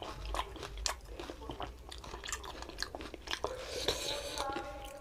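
Close-up crunching and chewing of fuchka (pani puri): the crisp fried puri shells crack between the teeth in many irregular snaps while the mouthful is chewed.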